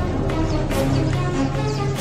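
Background music: sustained low tones with sharp percussion hits.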